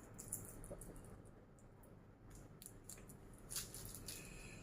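Faint rustling and light clicking of small plastic figure parts and packaging being handled and sorted, with a few scattered ticks and a short cluster of rustles near the end.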